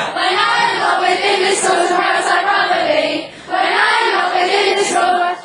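A group of people singing together in long held notes, with a short break about three seconds in; the singing stops near the end.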